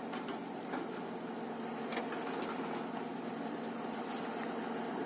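A steady machine hum, with a few faint light ticks.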